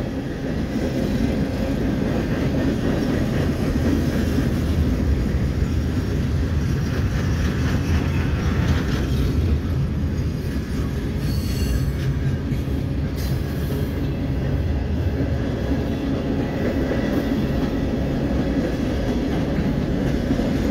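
Freight cars rolling past close by: a steady rumble and clatter of steel wheels on rail. A brief high wheel squeal comes about halfway through.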